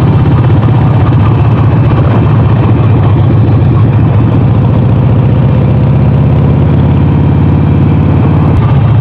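Harley-Davidson Sportster 48's air-cooled 1200 cc V-twin engine running steadily, its firing pulses loud and even with no change in revs.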